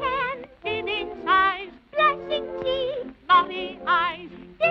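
Early-1930s cartoon soundtrack: high-pitched voices singing short phrases with a wide, wavering vibrato over orchestral accompaniment, the phrases broken by brief pauses.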